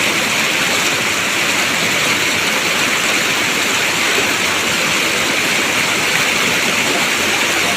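Mountain stream rushing steadily over rocks, a constant loud hiss of water.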